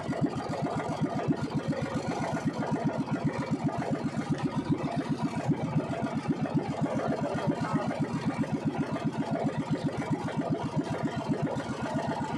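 Engine of a small motorized outrigger fishing boat running steadily, with a rapid, even putter throughout.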